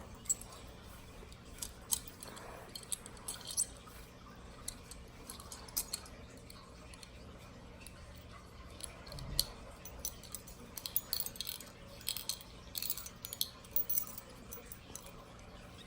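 Real metal handcuffs being worked at and handled, giving faint scattered small metallic clicks and clinks that come closer together near the end.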